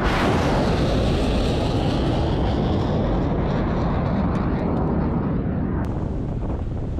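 Sea Viper missile launching from a Type 45 destroyer's vertical launch silo: a sudden blast, then the loud rushing noise of the rocket motor trailing off slowly as the missile climbs away. About six seconds in the sound cuts abruptly to a steadier rumble with wind on the microphone.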